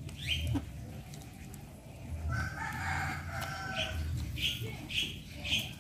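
A rooster crows once, a call of about a second starting a little after two seconds in, while a village chicken pecks at its feed. Near the end come short repeated sounds, about two a second, fitting the chicken's beak pecking in the plastic feed container.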